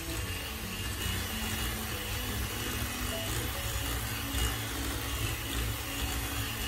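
Electric mixer motor running steadily, with background music over it.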